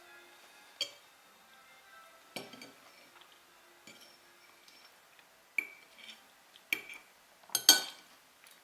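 Cutlery clinking against a plate in sporadic strikes, the loudest cluster near the end, with faint held electronic notes in between: music triggered by the sauce on the plate, which is wired to a Makey Makey as a touch switch.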